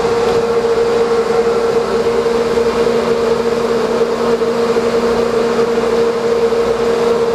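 Steady hum of a sportfishing boat's engines over a constant rush of wind and water.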